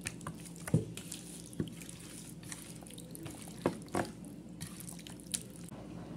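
Hands squishing and turning chicken pieces in a thick spice marinade in a stainless steel bowl: irregular wet squelches with a few sharper slaps.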